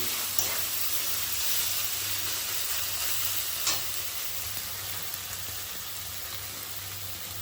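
Minced chicken with ginger-garlic paste sizzling steadily in hot oil in a kadai as it is sautéed, with a couple of light clicks from stirring. The sizzle grows slightly quieter toward the end.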